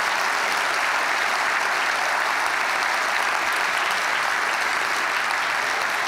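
Audience applause: many people clapping at a steady, even level.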